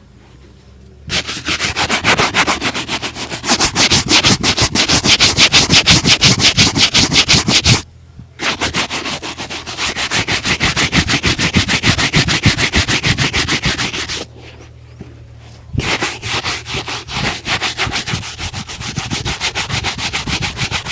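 A shoe being buffed with rapid back-and-forth strokes, about five a second, in three long runs with two short pauses between them.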